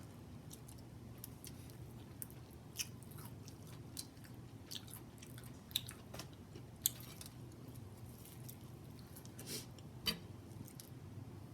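Close-up chewing of fried chicken in a person's mouth: soft, wet chewing broken by scattered sharp clicks and crunches, a few standing out near the middle and about ten seconds in.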